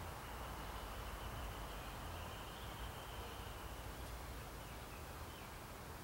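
Steady outdoor backyard ambience with a low rumble underneath. A faint, thin, high steady tone sounds for about three and a half seconds starting just after the beginning, then stops.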